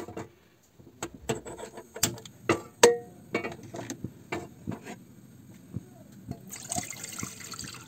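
A steel saucepan of water knocking and scraping on the gas stove's pan supports as it is set on the burner, one knock about three seconds in ringing briefly. Near the end a steady hiss sets in, the lit gas burner heating the water.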